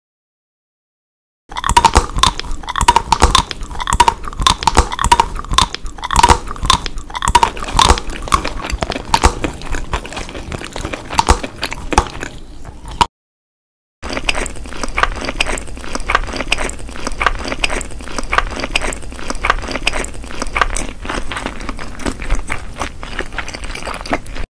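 Close-miked mukbang eating sounds: rapid, crunchy biting and chewing. They come in two long runs split by a short break about halfway, the first with a brighter, crisper crackle than the second.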